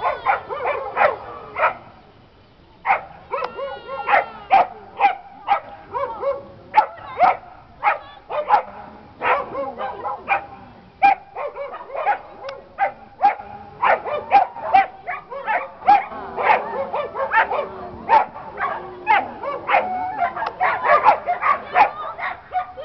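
Dog barking over and over in short, sharp barks, roughly two a second, with a brief break about two seconds in.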